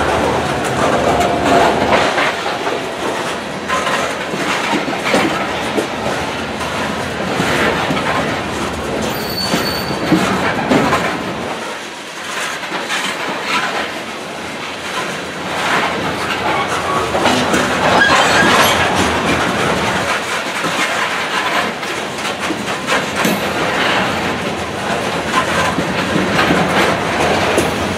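Loaded coal hopper cars of a freight train rolling past at close range: steel wheels clacking over the rail joints, with a few brief high wheel squeals.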